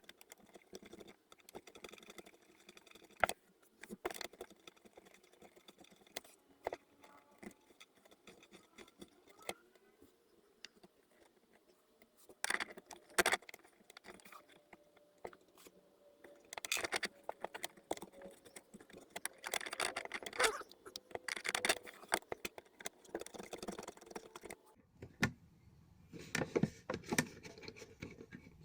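Intermittent clicks, clinks and rustling of small parts and hand tools being handled, with several sharper knocks and a short busier stretch of handling in the second half.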